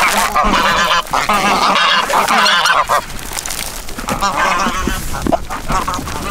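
Several geese honking over one another, densest in the first half and thinning to scattered calls after about three seconds.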